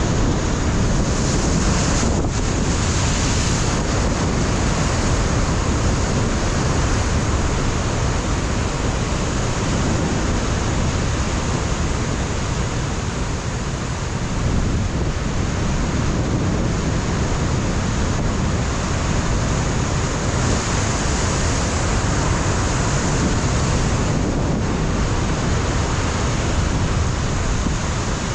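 Ocean surf breaking against a rocky shoreline, a continuous loud wash of waves, with wind buffeting the microphone.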